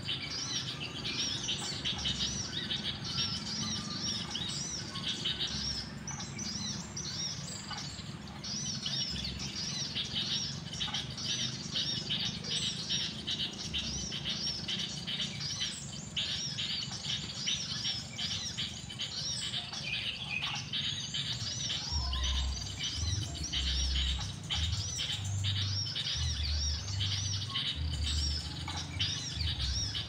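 Small birds chirping rapidly and without pause, a dense stream of short high chirps. Low rumbling bumps come in during the last third.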